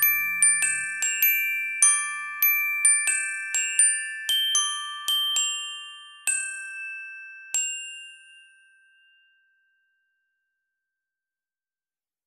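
Background music: a melody of struck, bell-like notes that slows and stops about two-thirds of the way through, the last note ringing out to silence.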